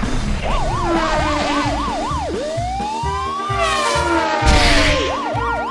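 Siren: a fast up-and-down yelp, then one long slow rise and fall, then the fast yelp again near the end. It plays over background music with a steady beat, and a hissing whoosh comes midway.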